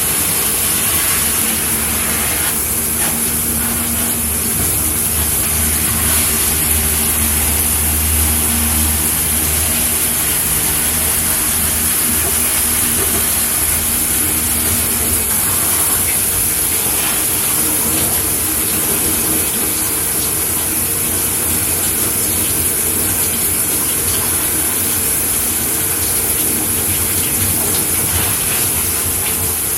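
Shower head running, water spraying in a steady, even hiss. A low hum sits underneath for roughly the first half, then fades.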